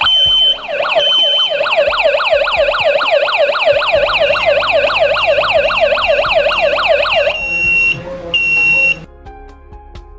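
Security alarm system siren going off in a fire-sensor alarm test: two steady high beeps, then a fast sweeping wail repeating about five times a second for some six seconds, then two more steady beeps before it stops.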